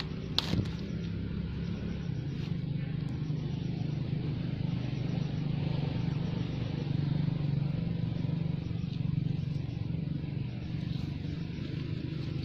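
A steady low motor hum, with one sharp click about half a second in.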